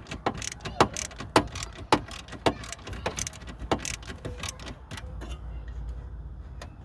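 Sharp mechanical clicks, about two a second, from hands-on work on the dash parts, followed by a low rumble for the last two seconds or so.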